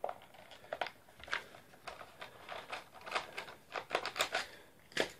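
Plastic clamshell housing of a Panasonic 28.8 V SDS cordless drill being pulled apart by hand: a run of irregular plastic clicks and knocks, thickest in the second half.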